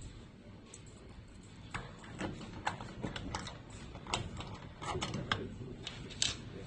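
Metal clicks and clinks as a Master Lock padlock is fitted through the steel hasp of an M2A1 ammo can, the shackle and lock body knocking against the hasp. The clicks come irregularly from about two seconds in, with the sharpest one near the end.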